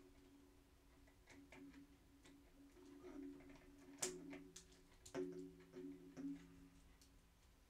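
Plastic parts of a Transformers action figure clicking as they are handled and moved through its transformation: scattered light clicks, with the loudest snap about four seconds in and another just after five.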